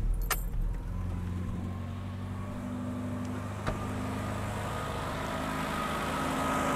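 Opel Rekord C 1900's 1.9-litre four-cylinder engine, on a Solex carburettor, catching at the very start and settling into a steady fast idle, fast because the engine is cold. A single sharp click about three and a half seconds in.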